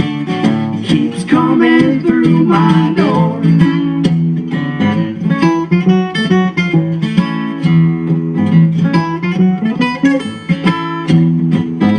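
Acoustic guitar strummed and picked in a passage of a song with no sung words.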